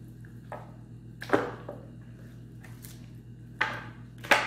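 Chunks of raw meat being picked up and dropped on a metal tray among plastic bags: several short wet slaps and rustles, the loudest about a second in and again near the end.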